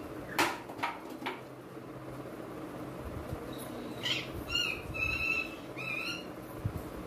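Eating sounds: a few sharp crunches or clicks in the first second and a half. Then a bird chirps four times, short calls that bend in pitch, in the second half.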